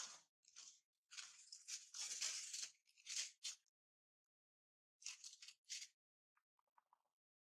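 Quiet scratchy rustling noises in a few short bursts, then several faint small clicks near the end.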